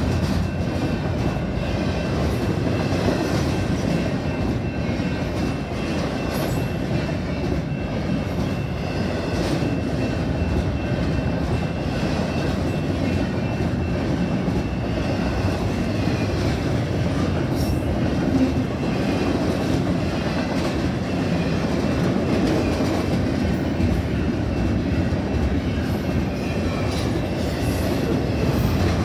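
Double-stack container freight train rolling past: a steady rumble and rattle of steel wheels on the rails, with no break in it.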